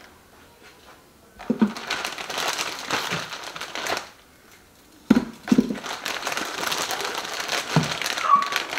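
Packaging crinkling and rustling as it is handled, in two spells about a second apart, with a few soft knocks.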